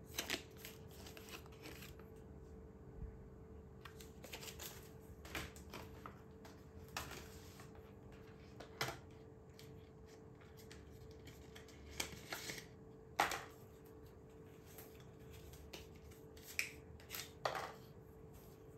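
Handling noise from unboxing a foldable phone: scattered taps, clicks and rustles of the phone and its packaging being handled, with a few sharper knocks, the loudest about 13 seconds in, over a faint steady hum.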